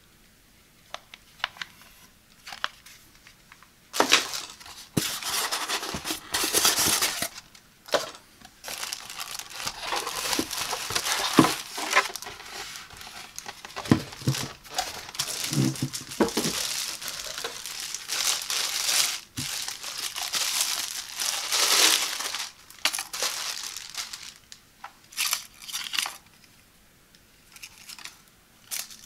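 Thin clear plastic bag crinkling and rustling as a glass electric kettle is pulled out of it and unwrapped. It comes in loud stretches with brief pauses and a few light knocks. The handling is quieter at the start and near the end.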